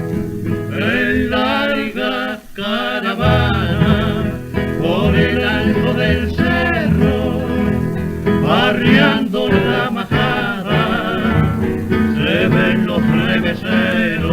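Male vocal duet singing a canción with vibrato over two acoustic guitars, from a 1931 78 rpm record with its narrow, dull old-disc sound.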